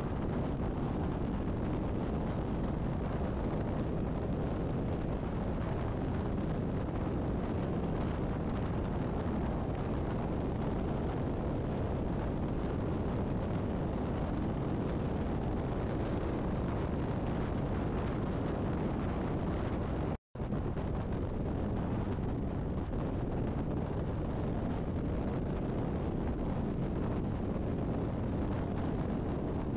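Steady wind and road roar buffeting a vehicle-mounted camera at highway speed beside semi trucks, heavy in the low end. The sound drops out completely for an instant about two-thirds of the way through.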